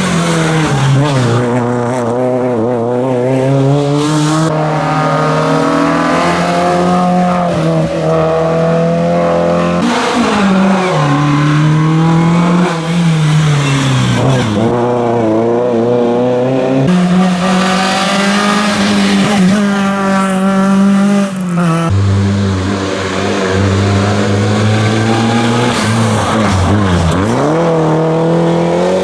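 Rally car engines at full throttle, the note climbing and then dropping sharply again and again through gear changes and lifts off the throttle.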